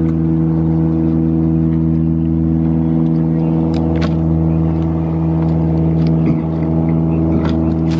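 Steady low hum of an idling car engine, with a few faint clicks of chewing over it.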